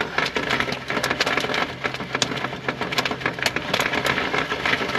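Jiffy Pop popcorn sizzling and popping in its foil pan on a portable butane stove: a dense crackle of many quick, sharp pops, with a steady low hum underneath.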